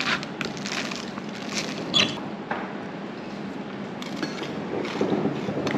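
Metal spoon and fork scraping and clinking on a ceramic plate as food is scooped up, a few short clicks over a steady background murmur.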